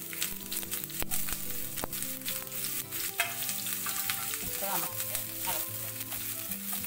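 Chopped onion sizzling in hot ghee and coconut oil with mustard seeds in a nonstick pan, with a few sharp crackles. A wooden spatula starts stirring the onion near the end.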